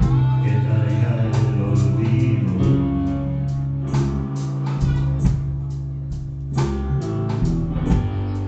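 Music with guitar and bass: sustained bass notes under plucked guitar, with a steady beat of drum hits.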